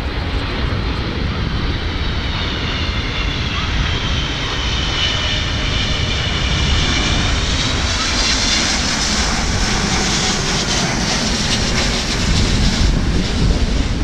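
Boeing 777-200ER on landing approach passing low overhead, its twin turbofan engines giving a steady low rumble with a high whine that dips in pitch and rises again. The sound grows louder in the last couple of seconds as the airliner passes.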